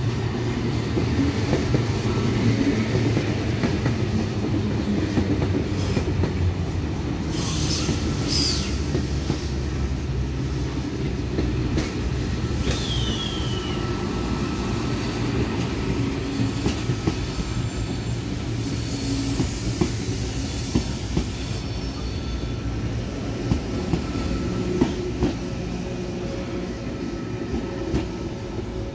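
V-set double-deck intercity electric train passing close by: a steady rumble of wheels on rail. High wheel squeals come a few times, one of them falling in pitch about halfway through, and sharp clicks from the wheels crossing rail joints come later on.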